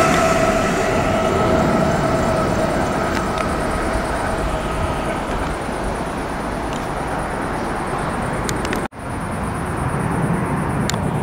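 Electric locomotive hauling an intercity train, moving away: its high two-note whine falls slightly in pitch and fades out over the first five seconds, leaving a steady background rumble. A brief break in the sound comes about nine seconds in.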